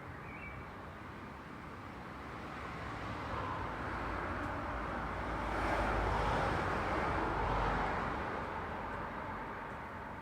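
Road traffic noise, with a passing vehicle's tyre and engine noise swelling to a peak about six to eight seconds in, then fading away.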